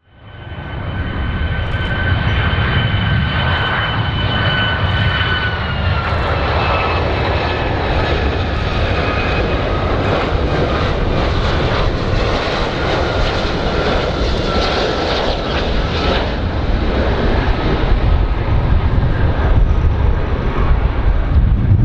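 Icelandair Boeing 757 jet engines on final approach: a steady rushing roar with a high two-note whine that slides a little lower about six seconds in, over a heavy low rumble.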